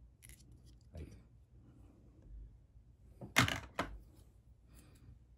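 Hands handling small plastic fishing-line spools on a tabletop: a few light knocks and clicks, the loudest pair about three and a half seconds in.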